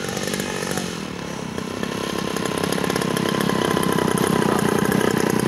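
Engine of a radio-controlled scale-model P-47 Thunderbolt running on the runway, a steady fast buzz that grows louder from about two seconds in.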